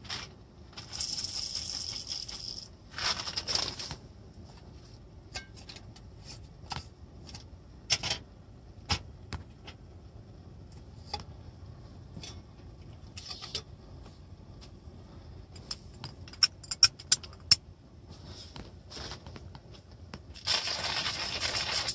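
Rustling and scattered clicks and taps of small objects being handled, with a quick run of sharper clicks about three-quarters of the way through. Stretches of hissing noise come near the start and again just before the end.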